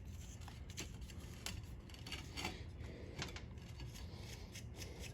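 Faint, scattered small clicks and rubbing as an old push-button switch is turned by hand off a welding positioner's control panel, over a low steady hum.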